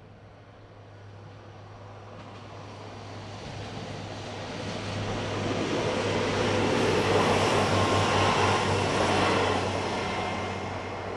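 SA133 diesel railbus passing over the level crossing: it rises out of the distance, is loudest about seven to nine seconds in, then fades as it moves away.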